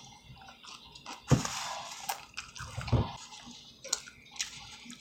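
Wet eating sounds close to the microphone: chewing and mouth smacking, with scattered clicks and a couple of louder short smacks.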